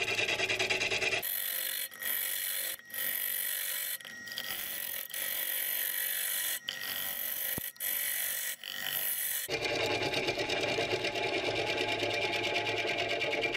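Gouge cutting into a spinning maple blank on a Powermatic wood lathe. The cut is a high, hissing scrape broken by several short gaps, and about two-thirds of the way in it turns into a coarser, rapidly pulsing cut that throws shavings.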